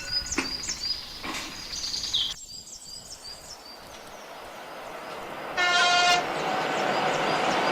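Sound-effect track of a train approaching a level crossing: warning tones and high ticking stop about two seconds in, then a growing rumble of the train rolling closer, with one short horn blast about five and a half seconds in.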